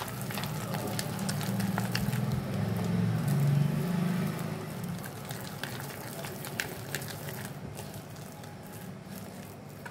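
Wet squelching and patting of a hand beating thick urad dal batter in a steel mixer jar, whipping air in to lighten it. A low rumble sits underneath, louder in the first half.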